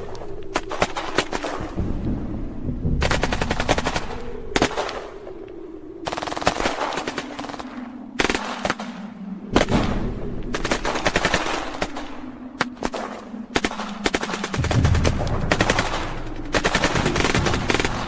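Battle sound effect: repeated bursts of rapid automatic gunfire, machine-gun style, a few seconds apart, over a low steady drone.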